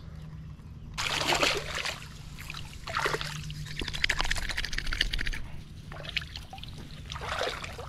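Water splashing and trickling in irregular bursts, loudest over a few seconds about a second in, with a shorter splash near the end.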